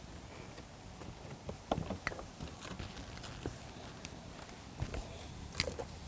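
Scattered light clicks and knocks, several irregularly spaced, over a steady low background hum.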